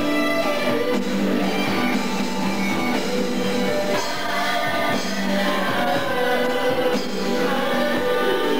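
Live rock band playing: a male singer sings over electric guitar.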